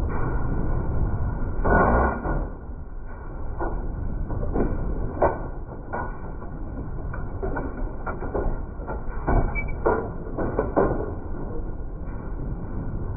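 Farm machinery running with a steady low rumble, a louder rush about two seconds in, and irregular knocks and clanks through the rest.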